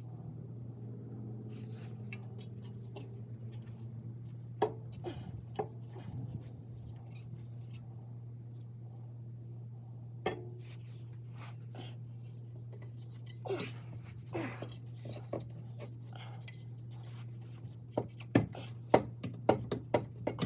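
Metal exhaust pipes and hardware knocking and clinking as they are handled and fitted, with a quick run of sharp clanks near the end, over a steady low hum.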